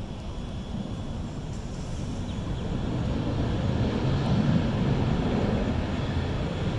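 Jet airliner's engines heard across the airfield as the aircraft moves along the runway, a steady rushing roar that grows louder to a peak about four to five seconds in.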